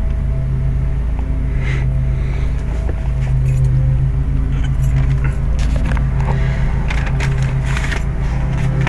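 A steady low mechanical hum with several overtones over a low rumble, with light metallic clinks and rattles from about halfway through.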